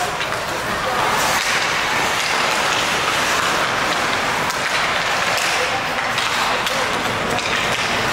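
Ice hockey play on a rink: steady scraping of skates on the ice, with occasional light taps of sticks and puck and faint voices in the background.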